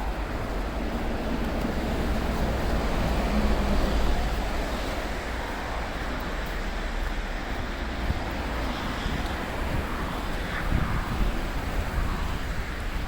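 Road traffic noise: a vehicle passing, swelling to its loudest about four seconds in and then fading, over a low rumble of wind on the microphone.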